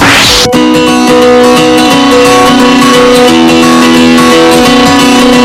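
Background music led by a plucked guitar playing sustained, changing notes, opened by a brief rising whoosh.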